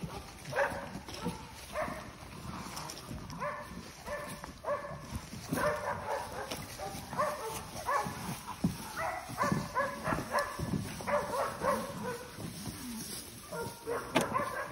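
Hunting dogs barking over and over, the barks overlapping. They are busiest from about five seconds in.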